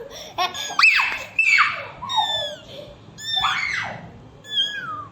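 Kittens mewing: a string of high-pitched calls that slide down in pitch, several overlapping in the first two seconds, then separate mews at intervals of about a second.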